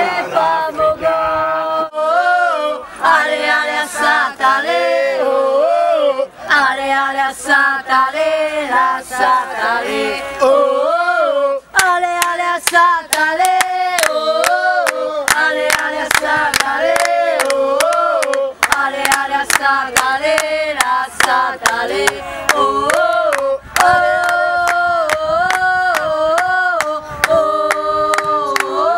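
Football supporters singing a chant together, a melodic tune held throughout. From about 12 seconds in, sharp beats about twice a second keep time under the singing.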